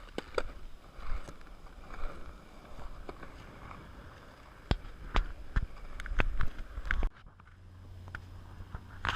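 Skateboard wheels rolling over pavement: a low rumble broken by a run of sharp clicks and knocks, dropping away about seven seconds in before starting up again.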